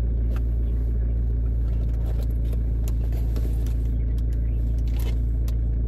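Steady low rumble of a car idling, heard inside the cabin, with a few faint clicks and rustles of things being handled.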